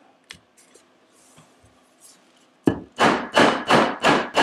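Mallet striking a metal rivet setter held on a leather-covered rivet over a metal anvil, partially setting the rivet: a few faint clicks, then a bit over halfway in a run of about five even strikes, roughly three a second, each with a short ring.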